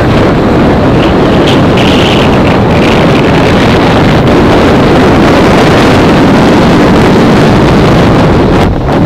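Wind buffeting the microphone on the deck of a moving boat, with the boat's engine noise underneath. Loud and steady, dipping briefly near the end.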